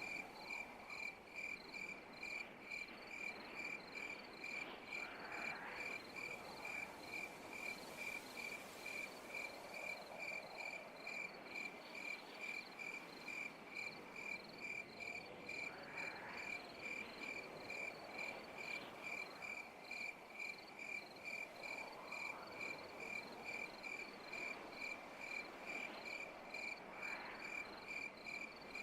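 A cricket chirping steadily in an even, high-pitched pulse, about two chirps a second, over a soft background of other night insects. A few faint rising calls sound now and then behind it.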